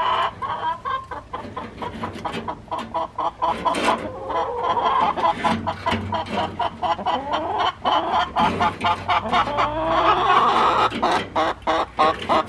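Hens clucking and calling continuously in rising and falling notes, with many small clicks and scrapes from a bent wire being worked through the wire mesh toward a gate latch.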